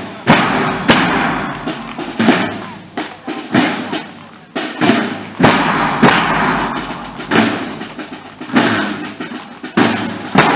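Marching drum corps of bass drums and side drums playing a parade beat: heavy bass drum strokes about every second, with the side drums playing steadily between them.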